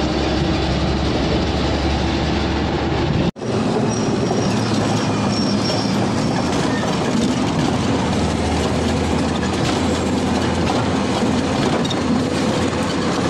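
Steady engine and road noise heard from inside a moving bus, with the sound of the open side window. It drops out for an instant about three seconds in.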